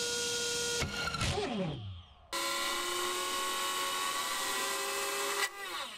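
Small brushless drone motor spinning a 3D-printed propeller fitted with a guard ring, a steady high whine. About a second in, the pitch falls away to near quiet, then the motor runs up again to a steady whine, which breaks off briefly near the end.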